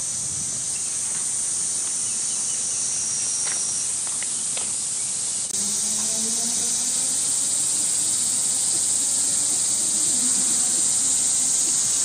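Cicadas singing in a dense, steady high-pitched chorus, which gets louder about halfway through.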